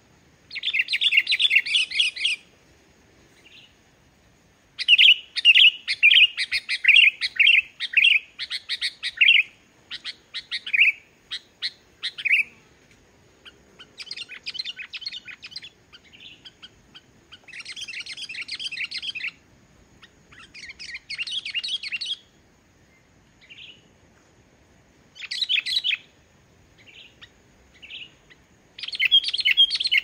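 Sooty-headed bulbul (kutilang) singing: bursts of rapid notes a second or two long, repeated with short pauses, loudest in the first ten seconds.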